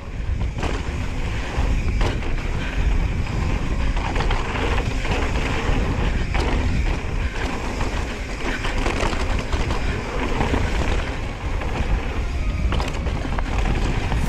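Wind rumbling on the camera microphone while a Specialized Stumpjumper mountain bike rolls and rattles over a rough dirt trail. Short knocks from bumps and chain slap are scattered throughout.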